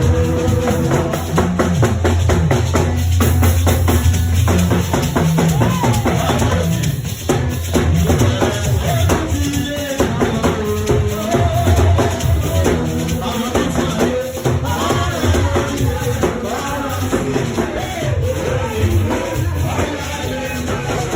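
Church choir music with a drum kit and hand percussion keeping a steady beat under a wavering melody.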